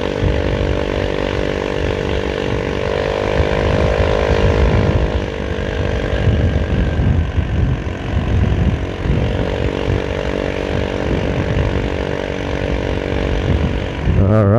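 Rusi RFi175 motorcycle engine running under way. Its pitch rises about three seconds in, eases off around five seconds, then climbs again near nine seconds. Wind rumbles on the microphone throughout.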